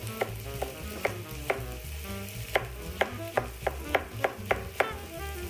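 Kitchen knife chopping a red hot chili pepper on a cutting board: a run of sharp taps, sparse at first, then quickening to about four a second from the middle on. Under it is the low sizzle of onions frying in a pan.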